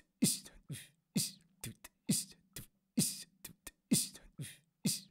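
Beatboxing: a steady mouth-made beat, with a low kick-drum thump about once a second and sharp hissing snare and click sounds between, over a faint steady hum.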